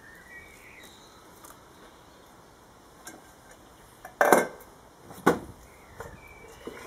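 A small metal pot set down on a wooden plank: two sharp knocks about a second apart, the first a short clatter.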